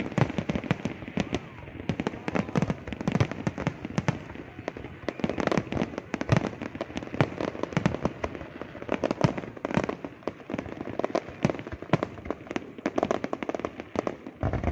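A fireworks display going off: a rapid, irregular run of bangs and crackling shell bursts, many each second with no pause.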